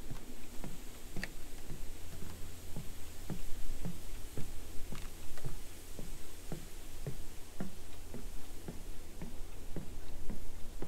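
Footsteps on the wooden planks of a boardwalk, an even walking pace of about two steps a second. A steady low rumble of wind on the microphone lies under them.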